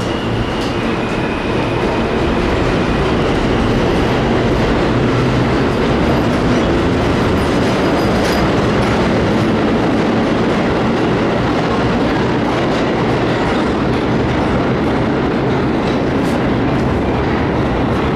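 A 1930s R1-9 vintage subway train running on the rails, heard as a steady, loud rumble of wheels on track with a few sharp clicks.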